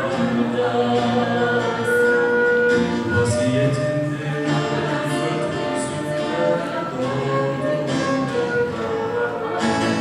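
A Turkish song being rehearsed: singing with instrumental accompaniment, held notes over a continuous musical backing.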